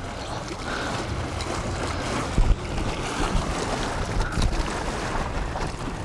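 Water rushing and splashing with wind buffeting the microphone as a small boat moves over the sea, with a brief thump about two and a half seconds in.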